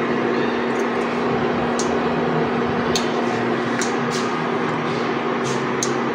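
Induction cooktop running with a steady hum and hiss, heating a steel saucepan of melting paraffin wax. A few faint, sharp ticks come at irregular moments.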